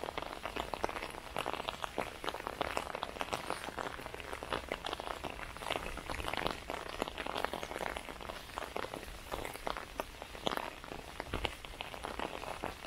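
Light rain falling on an umbrella overhead: a dense, irregular patter of small drop ticks.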